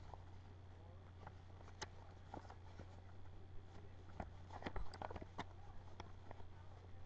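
Quiet room tone with a steady low hum and scattered faint clicks and rustles, a small cluster of them about four to five and a half seconds in.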